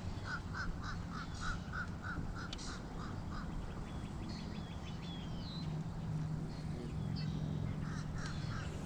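A bird calling in a quick series of short repeated notes, about four a second, for the first few seconds and again near the end, with smaller chirps of other birds between, over a low steady hum.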